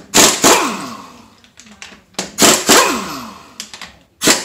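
Pneumatic impact wrench undoing 21 mm wheel nuts in short trigger bursts, its rattle falling away in pitch as the air motor spins down after each. Two bursts, with a third starting near the end.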